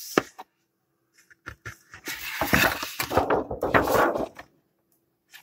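Thin plastic diffuser sheet from an LCD monitor's backlight being lifted and handled: a sharp click, a short pause, then a few seconds of rustling and crinkling with small clicks that fades out near the end.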